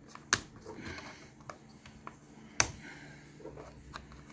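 Sharp plastic clicks and snaps of the rugged laptop's sealed port-cover doors being worked open by hand, two louder clicks standing out, one near the start and one about two and a half seconds in.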